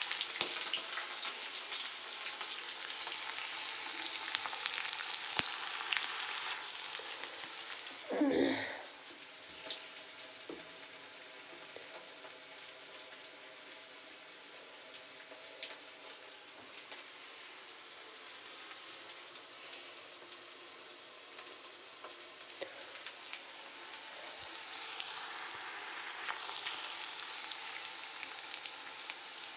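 Whole spices and then sliced onions frying in hot mustard oil in a kadhai, a steady sizzle that eases off after about eight seconds and swells again near the end. A brief louder clatter with a short ringing tone about eight seconds in.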